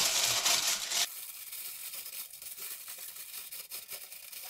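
Aluminium foil crinkling as hands crimp it over a pudding bowl; the crinkling stops suddenly about a second in, leaving only faint rustling of the foil.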